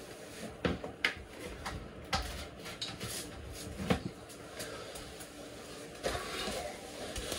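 Scattered light clicks and knocks of a power cord being handled and plugged in: a few sharp ones in the first four seconds, then a soft rustle from about six seconds in.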